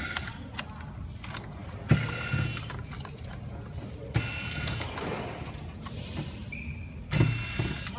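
A small electric motor whirs in three short bursts, about two, four and seven seconds in, with small clicks of plastic connectors and board handling between them.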